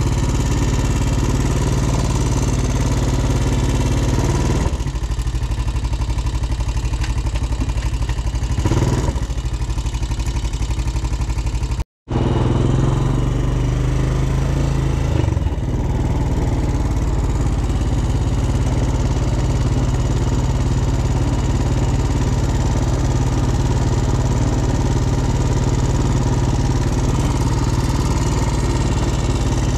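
ATV engine running steadily while being ridden, over a broad noise from the ride. About twelve seconds in, the sound cuts out completely for a moment.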